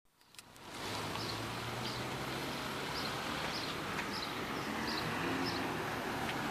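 Steady rain falling, fading in over the first second, with a short high chirp repeating about once or twice a second over it.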